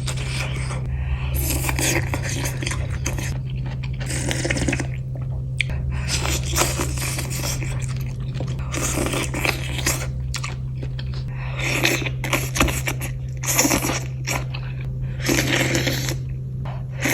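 Close-miked mukbang eating of spicy noodles with toppings: repeated short bursts of chewing and crunching, about one every second or two, over a steady low hum.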